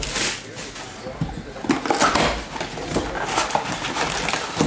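Cardboard trading-card hobby box being opened by hand: the lid and flaps scrape and click, and the foil card packs inside rustle and slide as they are lifted out, with a few short squeaks around the middle.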